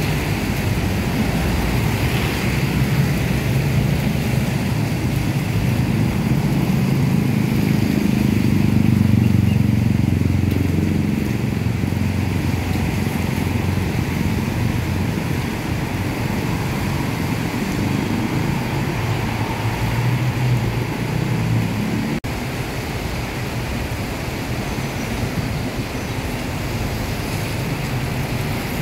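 Busy road traffic on a wet road: motorcycles, cars and city buses driving past with a steady engine rumble and tyres hissing on the wet asphalt. The engine rumble swells about a third of the way in as heavier traffic passes close.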